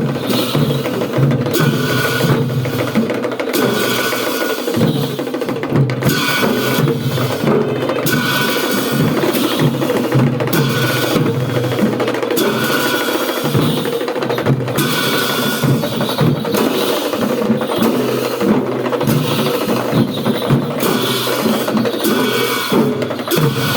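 Traditional Newar drum music for the Bhairab masked dance: drums and other percussion playing a dense, steady beat throughout.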